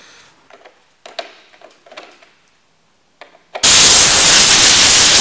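A hand deburring tool scraping faintly in a freshly drilled hole in the van's steel roof, then a compressed-air blow gun hissing loudly for about two seconds and cutting off sharply, blowing the drilling swarf off the roof.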